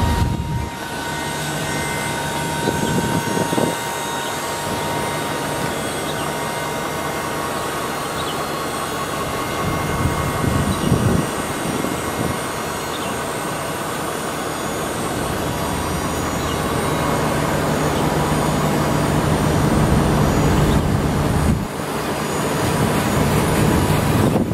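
Chevy Silverado 3500HD flatbed dump truck running while its dump hoist raises the bed: a steady mechanical hum with a thin high whine over it, growing a little louder in the second half.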